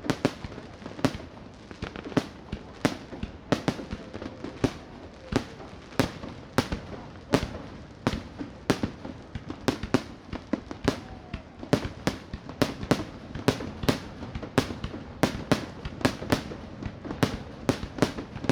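Aerial fireworks going off in quick succession, a steady rapid volley of sharp bangs about two or three a second, each with a short echoing tail, over a crowd murmur.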